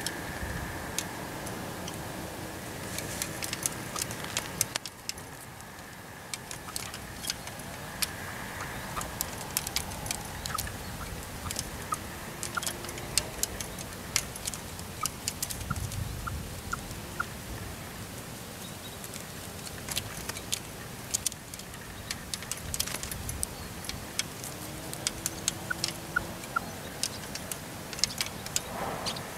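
Red-legged partridges at a caged call partridge, making many soft sharp clicks scattered throughout, with a run of short high pips in the middle.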